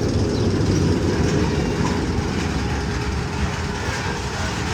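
Magnum XL 200 roller coaster train running along its track: a loud, steady rumble.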